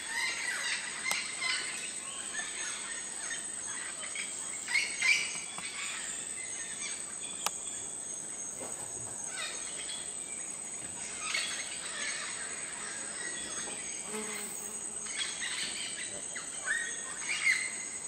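Several birds calling and chirping in a tropical forest canopy, with short calls scattered all through and the loudest about five seconds in and again near the end, over a steady high-pitched insect drone.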